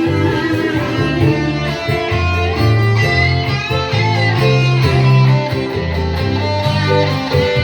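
Instrumental break of a band's song: guitar lead over bass and backing, with no singing.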